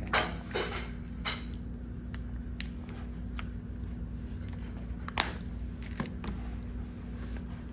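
Grooming tools handled close by: a few sharp clicks and taps of a tail comb and a clear plastic box of small elastic bands, the loudest about five seconds in, over a steady low hum.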